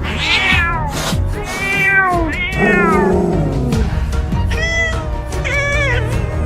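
Cat meowing about five times, each meow falling in pitch, the middle one lower and longer, over background music.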